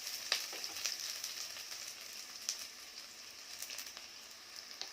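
Chopped onions and curry leaves frying in hot oil: a steady sizzling hiss with scattered crackling pops, settling a little as it goes.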